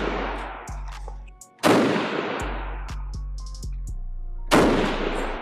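Two 6.5 Creedmoor rifle shots from a Bergara bolt-action rifle, about three seconds apart, each with a long echoing decay in an indoor range. Background music with low bass notes plays underneath.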